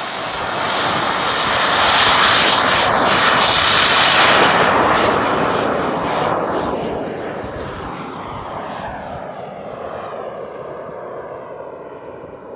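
Turbine engine of a radio-controlled Desperado model jet at full power on its first takeoff: a loud jet roar with a high whine that builds over the first few seconds, then fades with falling pitch as the jet moves away.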